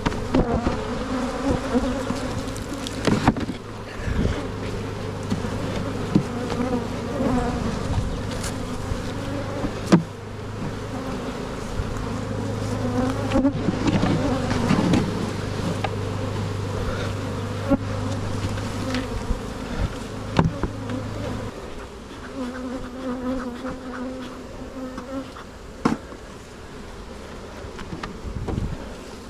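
Many honey bees buzzing in a wavering drone, with scattered sharp knocks and clicks.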